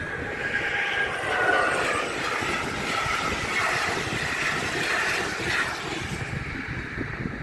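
Passenger train of coaches passing over the level crossing at speed: wheels rumbling and clattering on the rails, loudest in the first half and dying away after about six seconds as the last coach clears.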